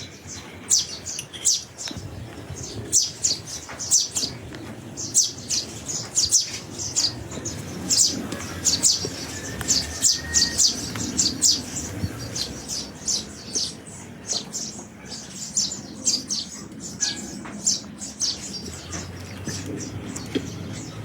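Small birds chirping, a dense run of short high chirps repeated rapidly and irregularly, over a low steady background rumble.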